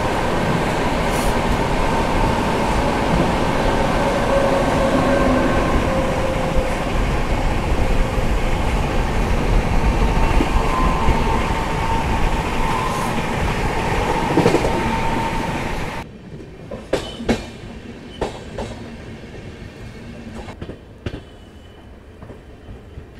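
Indian Railways express train running, heard from on board: a steady rumble with a few faint high squealing tones over it. About sixteen seconds in the noise drops abruptly to a much quieter stretch with scattered sharp clicks and knocks.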